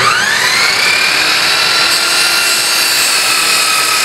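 Miter saw motor starting with a rising whine that reaches full speed in about a second, then running steadily. About two seconds in, the blade is lowered into a 2x4 for a slow cross cut and cutting noise joins the whine.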